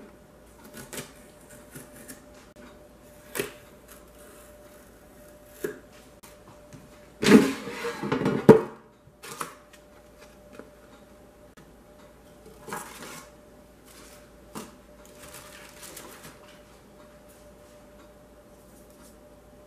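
Instant air fryer's basket drawer pulled out with a sliding scrape of about a second that ends in a sharp knock, about seven seconds in. Around it, scattered light clicks and short rustles of cardboard and paper packing being handled in the basket.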